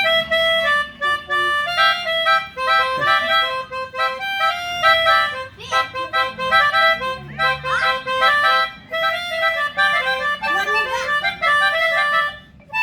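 Melodica (pianika) playing a quick melody in stepped, reedy notes, some of them overlapping as chords.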